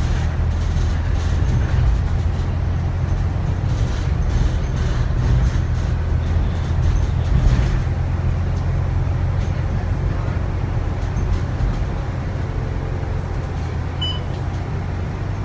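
Volvo B9TL double-decker bus's engine and drivetrain running as the bus drives, a steady low drone heard from inside the passenger cabin. A short high beep sounds once, about fourteen seconds in.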